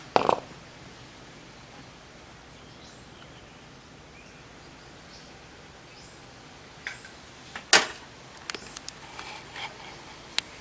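Quiet steady background hiss with a dull knock at the start, a sharp click about three-quarters through, and several lighter clicks after it.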